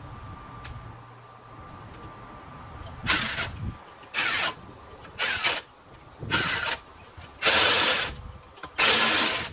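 Impact wrench fitted with a torque stick tightening wheel lug nuts in short bursts: six bursts about a second apart, starting about three seconds in, the later ones longer.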